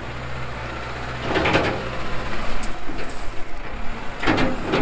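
Farm tractor engine running steadily under load as its front loader tips gravel into a steel tipper-truck tray. Two short rushes of gravel pouring and rattling come about a second and a half in and again near the end.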